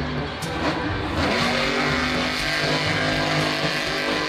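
Grave Digger monster truck's engine running hard, holding a steady high note for most of the stretch.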